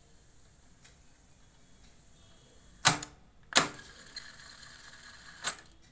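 Yamaha K-850 cassette deck's transport keys clicking as they are pressed: two sharp clunks about three seconds in, less than a second apart, and a third near the end, with a faint steady mechanism noise between.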